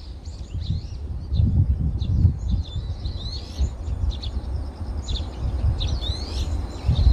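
Small birds chirping and singing in many short, quick calls, over a low, uneven rumble.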